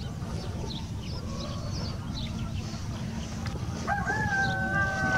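A rooster crowing: one long, held call that starts about four seconds in, with faint high chirps of small birds throughout.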